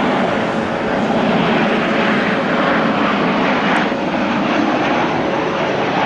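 Korean Air jet airliner landing, its engines loud and steady.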